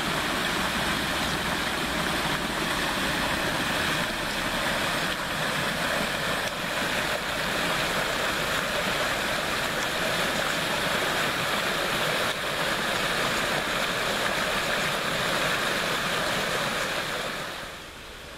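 Steady rush of flowing water, dropping to a quieter hiss near the end.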